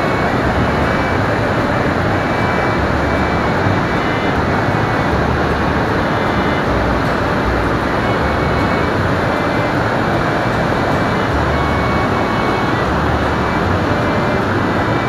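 Waterfall and whitewater cascades rushing steadily, a loud even roar of falling water.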